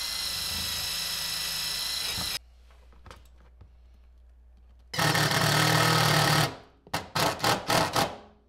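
Ridgid 18-volt cordless drill spinning a wire brush against the steel frame rail with a steady whine, stopping about two and a half seconds in. After a pause the drill runs again for about a second and a half, then in several short bursts as the 10 mm bolt is driven into the rail.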